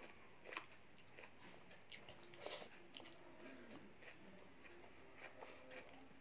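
Faint chewing of rice and urad dal, with scattered small wet clicks as fingers gather the food on a steel plate.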